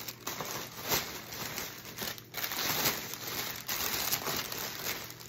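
Clear cellophane gift-basket bag crinkling irregularly as hands press and tuck it around the basket.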